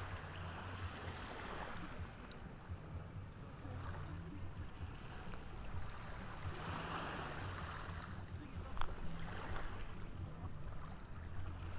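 Small ocean waves washing onto the shore, swelling and fading every few seconds over a steady low rumble. A single sharp click about nine seconds in.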